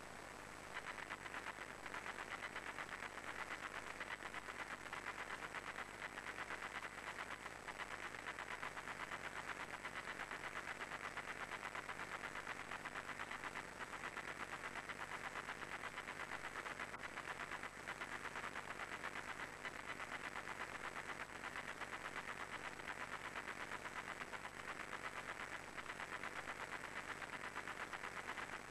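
Marching band drums beating a steady, rapid cadence of short strokes, faint under tape hiss.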